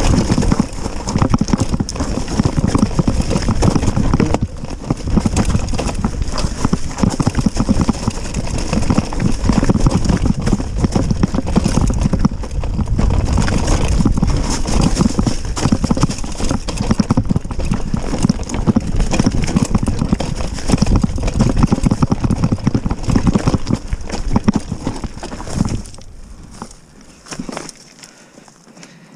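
Mountain bike descending a rough downhill trail: steady clattering and knocking of the frame, chain and tyres over rocks and roots, with heavy rumble. The clatter drops away sharply near the end as the bike slows to a stop.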